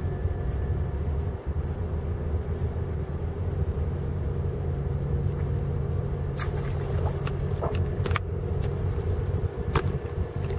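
Boat engine idling with a steady low rumble, joined by a few sharp clicks from about five seconds in.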